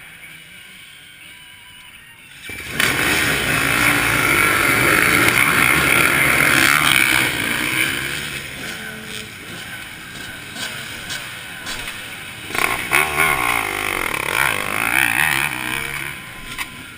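A row of off-road motorcycles firing up and revving hard off the start line: a sudden loud burst of many engines about two and a half seconds in that eases off as they pull away, with a second surge of revving about twelve seconds in.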